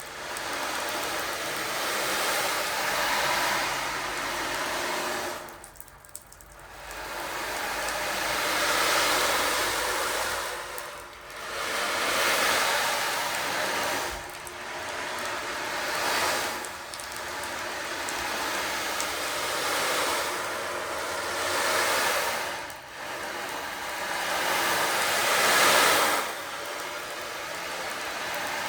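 A rushing noise that swells and fades in waves every three to five seconds, dipping briefly between swells.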